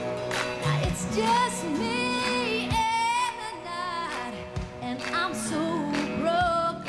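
A woman singing a country ballad live into a microphone, holding notes with vibrato over steady instrumental backing.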